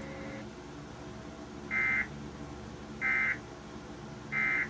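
Emergency Alert System end-of-message data bursts: three short digital tone bursts about a second apart, sent to mark the end of the warning message.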